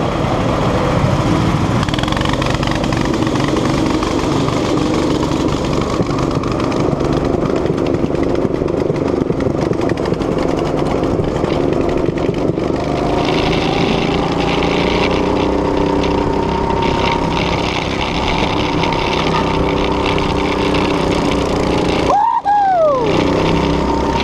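Go-kart engine running under throttle, heard from the driver's seat, its pitch shifting up and down with speed. A short falling squeal comes near the end.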